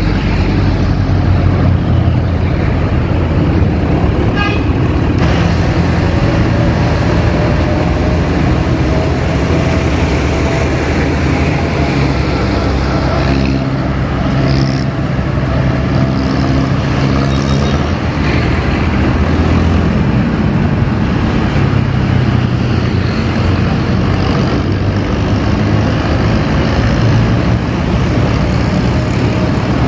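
City street traffic heard from a moving vehicle: steady engine and road rumble from jeepneys, motorcycles and buses, with a short horn toot about four seconds in.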